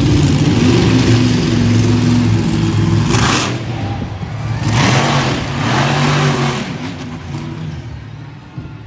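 Monster truck engine revving hard as the truck runs at and over a jump, with loud bursts of noise about three and five seconds in. The engine sound fades as the truck moves away near the end.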